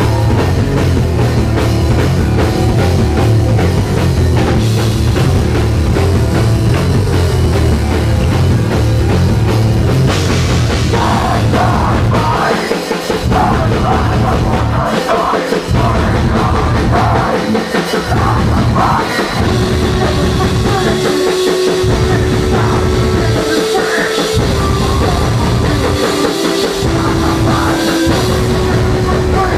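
Live heavy metal band playing loud, with drum kit and heavy low end. About twelve seconds in, the low end starts cutting out in short, regular breaks about every two seconds, a stop-start riff. A steady held note enters over it a few seconds later.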